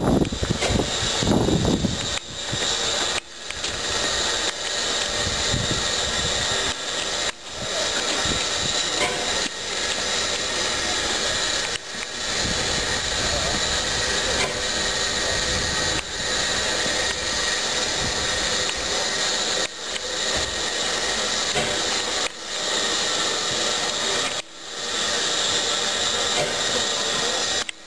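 Steady steam hissing from the standing six-coupled tank steam locomotive No. 28 'Badenia', broken by several brief dropouts after which the sound fades back in.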